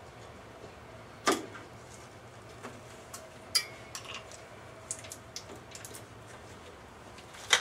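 Scattered clicks, taps and clinks of small parts and hand tools being handled in a car's engine bay. The sharpest knock comes about a second in and another near the end.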